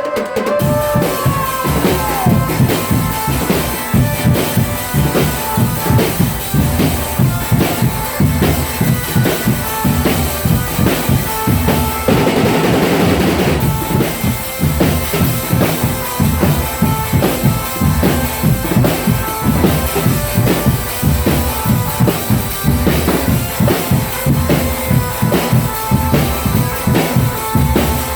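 Drum band percussion playing a fast, driving beat on bass drums and snare drums, with a denser rolling passage about twelve seconds in.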